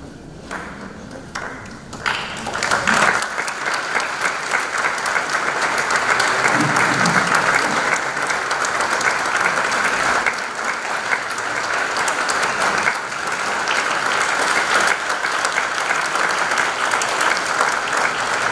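Audience applauding: a few scattered claps, then full applause from about two seconds in that keeps up steadily.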